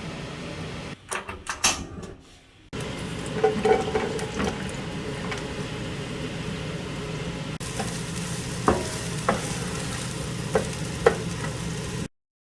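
Food frying in a pan with a steady sizzle, while a utensil stirs and clinks against the pan every so often. The sound breaks off at several abrupt cuts and drops out completely near the end.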